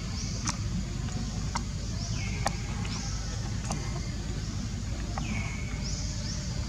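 Outdoor ambience: a steady low rumble with a short, high, falling chirp repeating about once a second, and a few sharp clicks.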